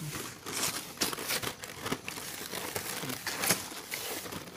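Printed wrapping on a firework box crinkling and rustling in irregular bursts as hands pull it open, with some tearing.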